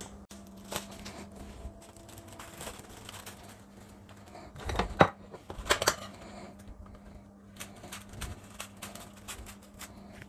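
Plastic cling film being drawn off its roll and pressed over a plate, crinkling and crackling, with louder rustles about five and six seconds in. A faint steady hum runs underneath.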